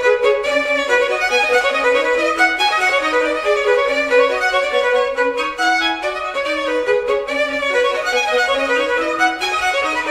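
Music: a fast, busy melody of short, quickly changing notes, with no pauses.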